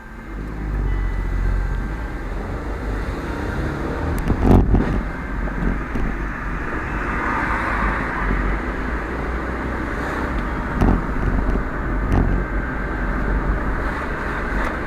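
Driving noise from a moving car picked up by a Viofo A118C V2 dashcam's built-in microphone, swamped by a heavy steady low rumble: vibration carried into the camera, the noise fault of this dashcam. A thump about four and a half seconds in and a couple of lighter knocks later.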